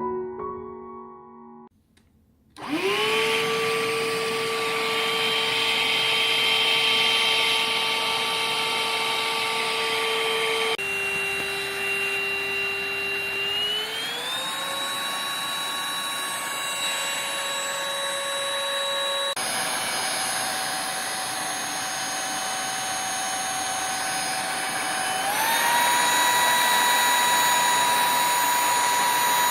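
Brief piano music, then a Dibea cordless stick vacuum cleaner's motor starts and runs with a loud, steady whine. The pitch jumps abruptly about 11 and 19 seconds in. Twice the motor speeds up and the whine glides smoothly higher.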